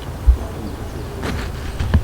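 Safari game-drive vehicle moving along a bush track: a steady running noise broken by irregular low thumps, one strong one just after the start and another near the end.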